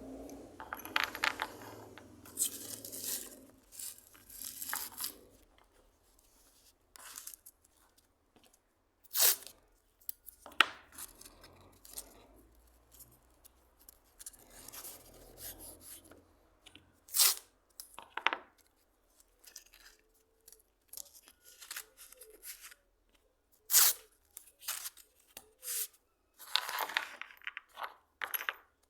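Hand plane pushed over wood in short separate strokes, each a brief sharp rasping tear, coming irregularly every second or two with soft clicks between.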